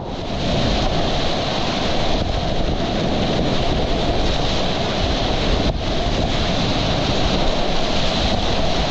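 Whitewater rushing steadily through a river play hole, a continuous wash of water noise.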